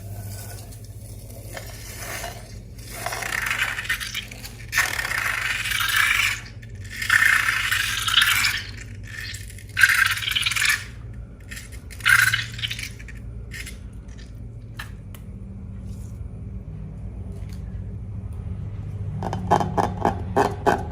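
Bursts of scraping and rustling from hands working a slime-filled balloon, with a few sharp clicks in the middle. Rhythmic music comes in near the end.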